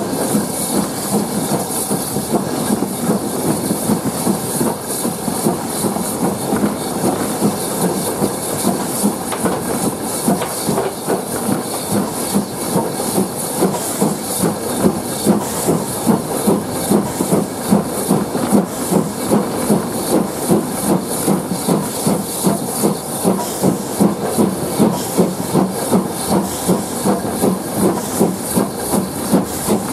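BR Standard 4MT 2-6-4T tank engine's two-cylinder exhaust beating in a steady, regular rhythm over a constant hiss of steam, heard from the footplate as the locomotive works uphill. The beats grow sharper and more distinct after the middle.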